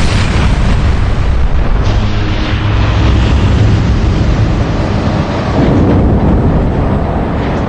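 Large airliner turbofan engine running in a fan-blade-off containment test: a loud, steady rushing noise with a deep rumble underneath.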